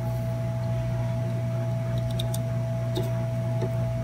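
Steady low electrical hum with a thin constant whine above it, likely from the bench equipment, and a few faint light clicks as the soldering iron and solder wick are brought to the board's pads.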